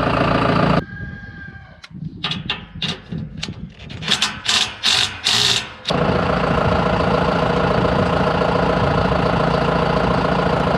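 Tractor engine running steadily. About a second in it gives way for some five seconds to a quieter stretch: a short falling whine, then a string of about ten sharp knocks and clicks that grow louder. After that the tractor engine runs steadily again.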